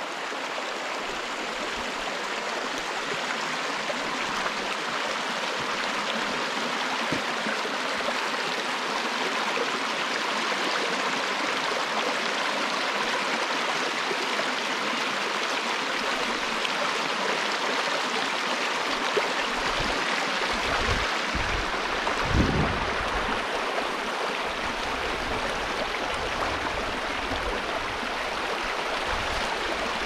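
Small rocky woodland stream running over stones in shallow riffles, a steady rush of water. A few brief low bumps come about two-thirds of the way through.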